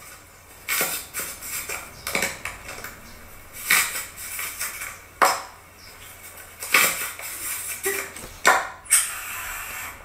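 Aluminium foil crinkling and crunching as a hand presses down on foil-topped cups, about six separate crunches roughly a second and a half apart.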